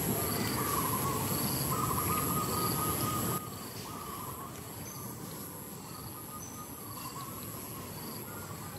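Outdoor insect chorus: a high, pulsing trill with short chirps repeating about twice a second, over some wavering whistle-like calls. A low background rumble drops away suddenly about a third of the way in.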